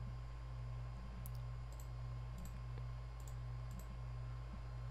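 Faint computer mouse clicks, about five spread through, each a quick double tick of press and release, over a steady low electrical hum.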